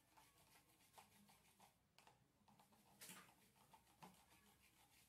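Faint brushing of a bicycle chain with degreaser: quick repeated scratchy strokes, with one louder scrub about three seconds in.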